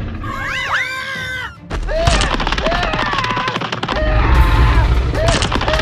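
Battle sound effects: a brief rising-and-falling pitched sound in the first second and a half, then rapid gunfire-like crackling with short pitched chirps about once a second.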